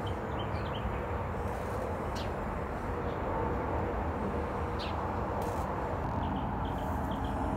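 Steady outdoor background rumble, with a few faint high bird chirps about half a second in and again near the end.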